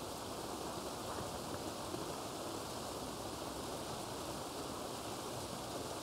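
Small waterfall running, a steady, even rush of water.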